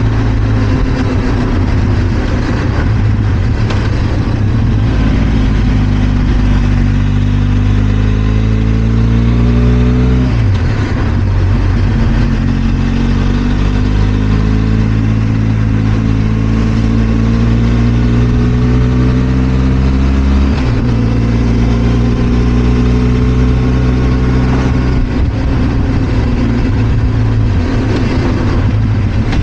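Benelli TRK 502 X's parallel-twin engine under way, pulling with its pitch climbing steadily, dropping sharply on an upshift about ten seconds in and again about twenty seconds in, then running at a fairly steady speed.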